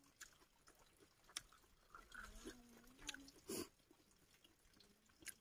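Faint close-up chewing of fish and rice eaten by hand, with a few sharp mouth clicks and smacks; the loudest comes about three and a half seconds in. A faint low pitched hum sounds about two seconds in.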